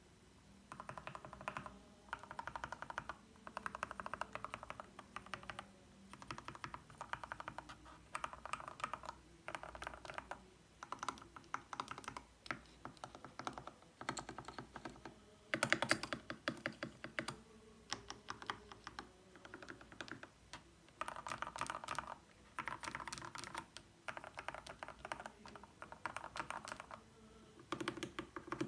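Mechanical keyboard with Gateron Milky Yellow linear switches and XDA-profile keycaps being typed on in bursts of rapid keystrokes, each burst a second or two long with short pauses between. The loudest burst comes about halfway through.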